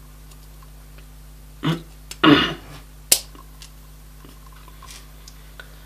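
Quiet handling of a circuit board as LED leads are pushed into their holes: two soft rustles, then one sharp click about three seconds in, over a steady low electrical hum.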